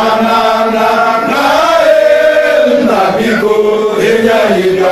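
Voices chanting a song in long, held notes, loud and close.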